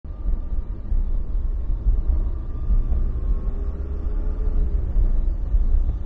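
Mitsubishi Pajero Mini driving, heard inside the cabin: a steady low drivetrain and road rumble carrying a continuous 'shara-shara' swishing noise from around the differential. The owner takes the noise for the differential and hopes fresh diff oil will cure it.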